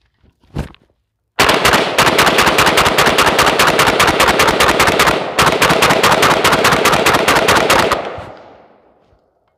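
Zastava PAP M90 5.56 AK rifle, unsuppressed, fired in a fast string of several shots a second with a short break about halfway, emptying the magazine until the bolt locks open. The echo of the last shot fades over about a second.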